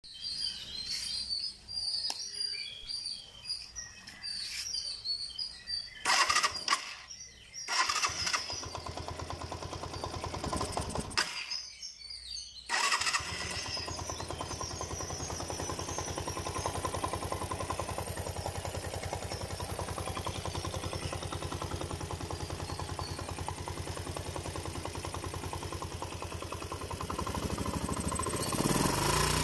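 Suzuki Djebel's single-cylinder four-stroke engine being started: a few short cranking bursts, then it catches and settles into a steady idle with a fast, even knock, picking up revs near the end. The customer states the knock is a connecting-rod knock, with overheating. Birds chirp before it starts.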